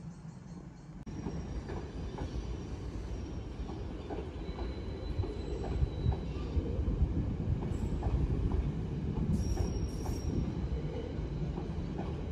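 London Underground 2009 Stock Victoria line train moving slowly through the depot: a low rumble that grows louder, wheels clicking over rail joints at a steady rhythm, and brief high wheel squeals twice.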